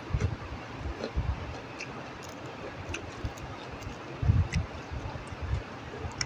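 Close-up chewing of crunchy raw vegetables: irregular low mouth thumps and small sharp crunching clicks. Underneath runs a steady hiss of heavy rain.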